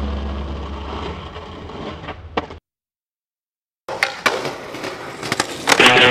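A song fades out, and after about a second of dead silence a skateboard rolls on rough asphalt with several sharp clacks and knocks of the board. Electric guitar music starts near the end.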